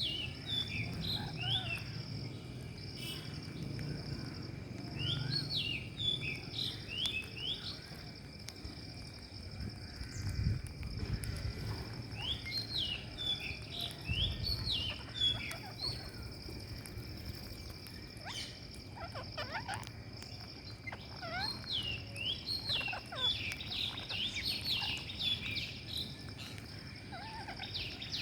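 Rose-ringed parakeets calling in bursts of short, quick, downward-sliding notes, several at a time, with the calls thickest near the end.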